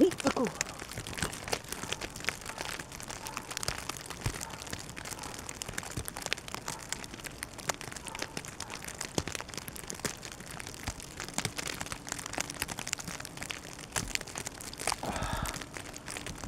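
Irregular crinkling and crackling rustle, with many scattered sharp clicks.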